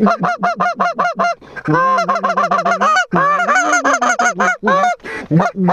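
Goose call blown by hand in a fast, loud series of honks and clucks, about six notes a second, with a short break about a second and a half in and then a longer unbroken run of quick notes. It is calling to ducks circling over the decoy spread.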